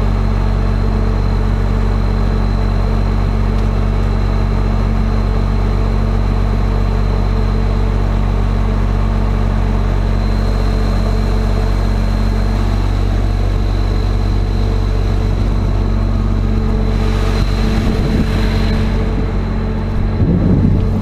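Miller Nitro 5333 self-propelled sprayer's diesel engine running steadily at a constant speed, a low even drone with a thin high whine above it. A brief rush of noise comes in near the end.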